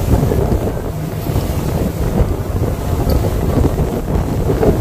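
Wind buffeting the microphone aboard a glass-bottom tour boat: a steady low rumble mixed with the sound of the boat moving through choppy water.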